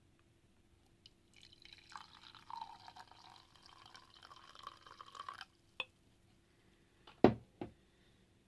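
Tea being poured into a cup for about four seconds, the pitch of the stream rising a little as the cup fills. A click follows, then two sharp knocks near the end, the first of them the loudest sound.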